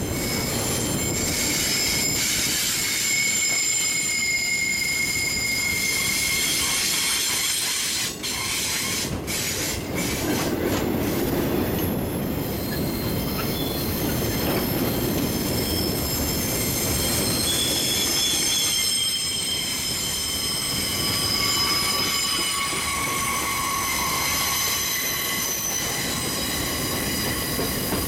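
Freight train of loaded flatcars rolling past, its steel wheels squealing in several long, high tones over a steady rumble, with a few sharp clacks about a third of the way through.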